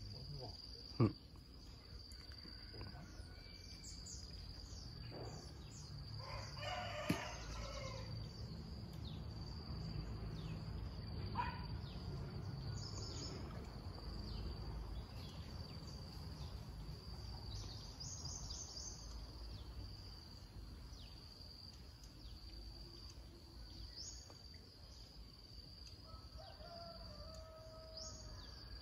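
Outdoor rural ambience: a steady high-pitched insect drone over a low rumble, with a rooster crowing once about seven seconds in and another bird call near the end. Two sharp clicks, about one and seven seconds in, are the loudest sounds.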